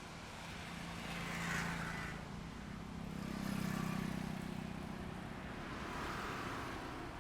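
Highway traffic passing by: several vehicles go by in turn, swelling about a second and a half in, near the middle and again near the end, over a steady low engine hum.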